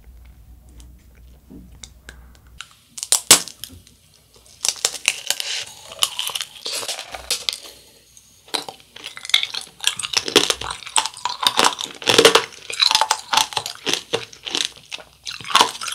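Biting and chewing tangerine tanghulu: the hard sugar shell cracks sharply about three seconds in, then crunchy, crackling chewing of the brittle candy coating around the tangerine runs on to the end.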